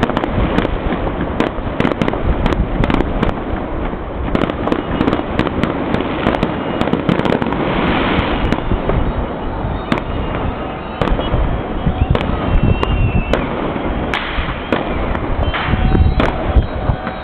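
Many fireworks and firecrackers going off at once across a city: a continuous mass of bangs and crackling pops with no break.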